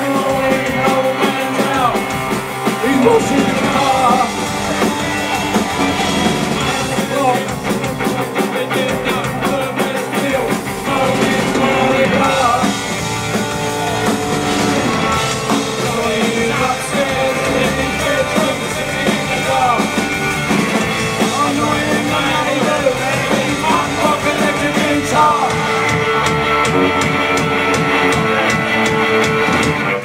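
A punk rock band playing live, with electric guitars, a drum kit and sung vocals, loud and continuous.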